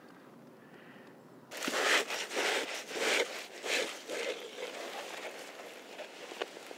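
Dry leaf litter and twigs crackling and scraping as a gloved hand works the round lid of a burrow access hatch. The rustles come in a run of short bursts starting about a second and a half in, then fade.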